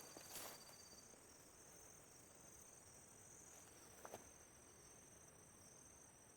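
Faint, steady, high-pitched insect chorus, with a couple of soft clicks near the start and about four seconds in.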